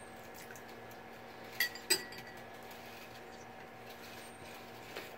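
Spatula clinking against a mixing bowl while stirring slime: two sharp clinks close together about a second and a half in, and a fainter one near the end, over a steady low hum.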